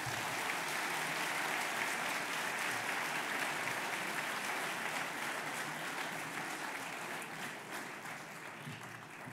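Audience applauding, steady at first and then gradually dying away over the last few seconds.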